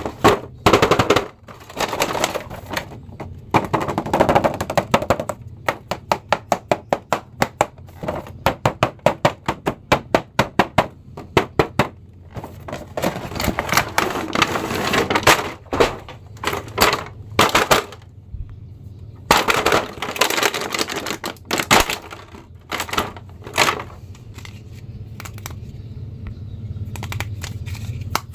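Plastic blister packaging and a cardboard toy box being handled and opened by hand: crinkling plastic and crackle, with runs of quick sharp clicks.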